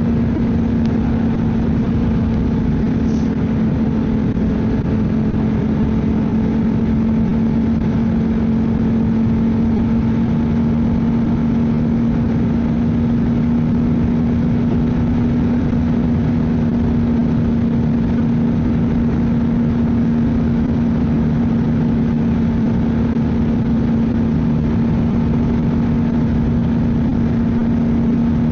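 Ski-Doo snowmobile engine running at a steady cruising speed on a trail: an even, unchanging drone with no revving.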